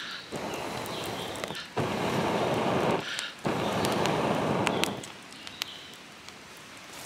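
Wood fire in a three-stone hearth, with two long rushes of air about two and three and a half seconds in, from someone blowing on the embers to raise the flames. A few sharp crackles of burning sticks follow.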